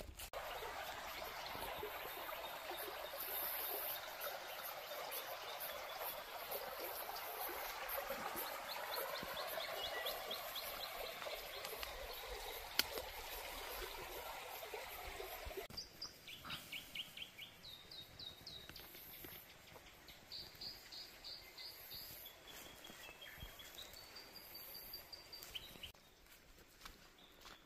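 Rushing river water that cuts off suddenly about sixteen seconds in. After the cut, forest birds call in quick runs of short, repeated high notes.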